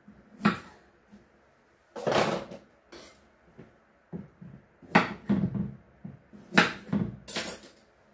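Kitchen items being handled and set down on a counter and wooden cutting board: irregular knocks and clatters, about half a dozen, with quiet gaps between.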